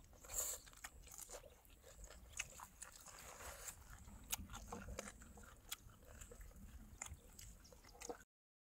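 A person chewing and biting food, with irregular crisp crunching clicks, cut off abruptly near the end.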